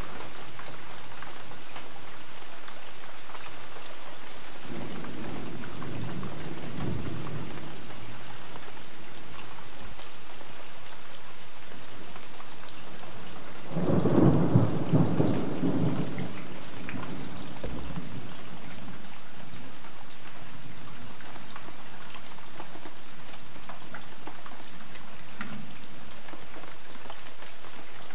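Steady light rain falling, with thunder rumbling: a low rumble about five seconds in and a much louder peal about halfway through that lasts a couple of seconds, then a faint rumble near the end.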